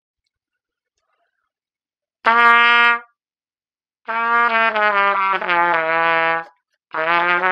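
pTrumpet, an all-plastic trumpet, played through a 3C mouthpiece in its low register. One short note comes about two seconds in, then two longer phrases of low notes, the first stepping down and the second stepping back up.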